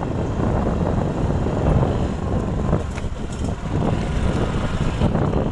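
Motorcycle riding along a bumpy dirt track, its engine noise mixed with heavy wind buffeting on the microphone in a steady low rumble.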